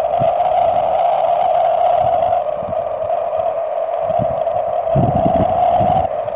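Steady loud rushing noise, with irregular gusts of wind buffeting the microphone, heaviest about five seconds in.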